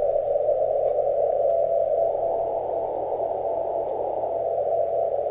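Software-defined radio receiver audio in CW mode at 332 kHz: a band of hiss with a faint tone of a non-directional beacon (NDB) keyed on and off in its Morse identifier from about two seconds in, audible because of the RSP1B's low noise floor.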